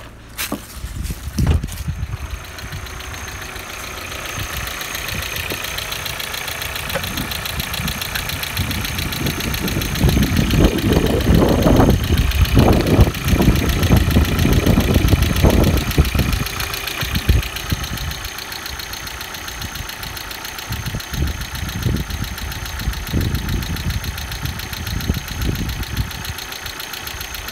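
VW Passat B5's 1.8T AEB 20-valve turbocharged four-cylinder engine idling steadily with the bonnet open. In the middle, for about six seconds while the oil filler cap is off, louder uneven low pulsing comes in, as in a check for crankcase blow-by.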